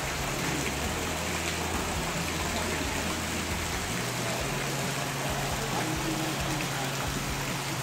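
Steady rush of an indoor waterfall splashing into a rock pond, with a low steady hum underneath.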